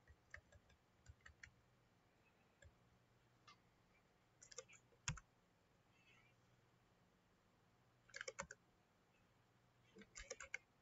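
Faint clicking of computer keyboard keys in short bursts of typing, with one sharper single click about five seconds in.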